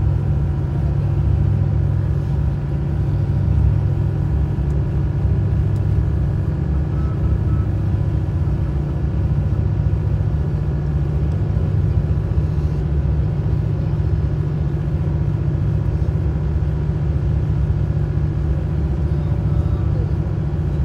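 Steady low rumble and drone of a vehicle travelling at speed, heard from inside, with a few faint steady tones above the rumble.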